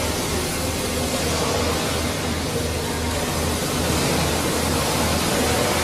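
Steady machine noise with a low pulsing beat about twice a second over an even hiss.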